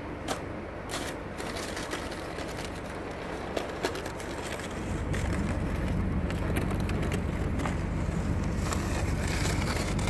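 Wind buffeting the microphone in a snowstorm: a steady low rumble that grows stronger about halfway through, with scattered crunching clicks.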